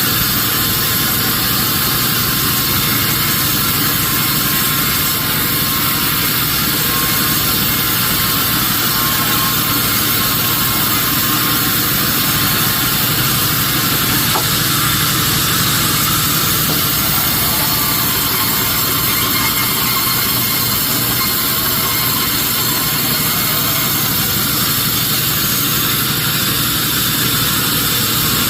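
Sawmill machinery running steadily: a continuous engine drone with a strong hiss over it, unchanging and with no distinct knocks or breaks.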